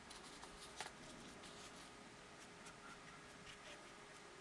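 Paintbrush dabbing and scrubbing colour onto watercolour paper: faint, quick taps and scratches, with one sharper tap about a second in.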